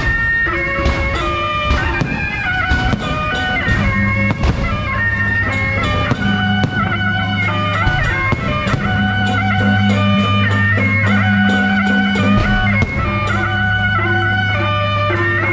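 Music: a reedy wind melody moving in steps over a steady low drone, with sharp percussive hits throughout.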